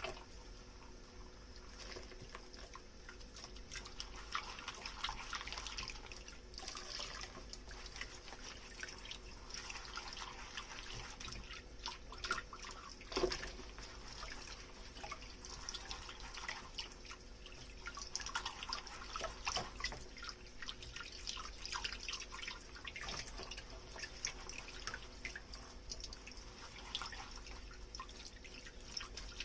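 Dishes being washed by hand in a kitchen sink: water dripping and trickling, with scattered small knocks and clinks of the dishes. One sharper knock comes about halfway through.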